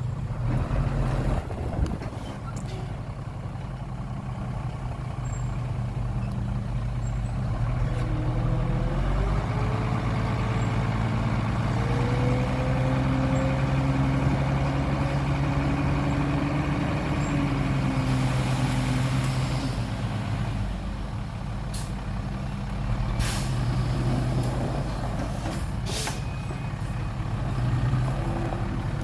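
Heavy dump truck's diesel engine running under load, its pitch climbing and holding through the middle before dropping back. Near the end come several short, sharp air-brake hisses.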